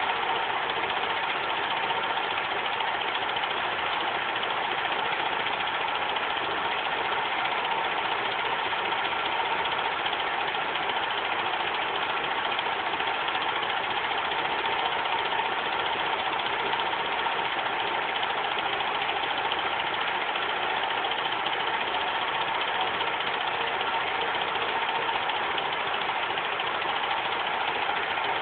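Bell & Howell dual 8 film projector running a Super 8 film: a steady, even mechanical whir with a few faint steady tones in it.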